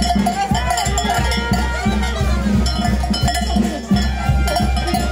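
Music with a steady, pulsing low beat under a held tone and a wavering melody.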